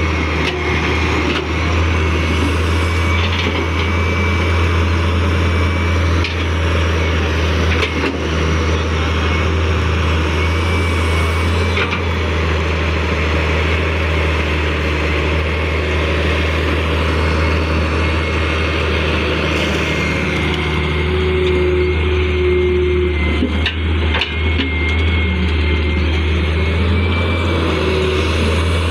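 Excavator's engine running steadily under load, a low drone with a thin high whine over it and a few sharp knocks now and then.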